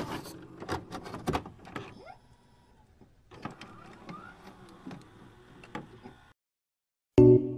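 Glitchy digital loading-screen sound effect: scattered clicks and crackles over a faint electronic whirr, cutting off suddenly about six seconds in. Piano music starts near the end.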